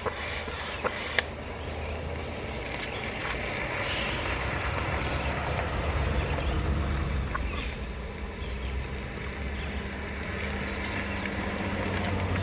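A motor running with a steady low hum that grows louder about halfway through and again near the end, with a few light clicks in the first second.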